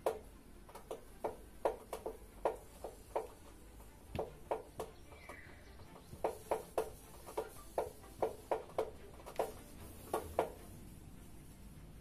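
Samsung Digital Inverter front-loading washing machine running its calibration cycle: the drum turns with a string of light, irregular knocks and clicks, about two or three a second, over a low hum.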